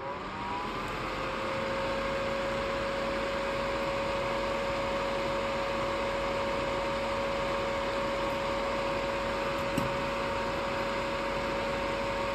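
A small electric motor starts up, its hum rising in pitch for about a second, then runs steadily with a hiss like a fan or small vacuum pump. There is one faint click near the end.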